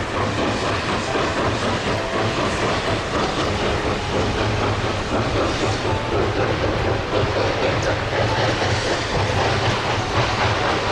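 Narrow-gauge passenger train cars rolling along the track, the wheels making a steady clatter over a low rumble.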